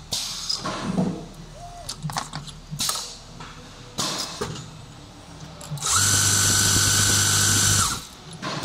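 Automatic armature winding machine for small 3-, 5- and 7-slot rotors working through its cycle, with scattered clicks and knocks of its mechanisms. About six seconds in, the flyer spindles spin up and wind the wire with a loud steady whine for about two seconds, then stop abruptly.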